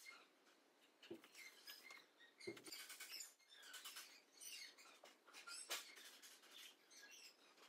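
Faint rustling and scratching as hands press and shape a brown, twisted craft-material tree branch onto a wall, with two soft low bumps about one and two and a half seconds in.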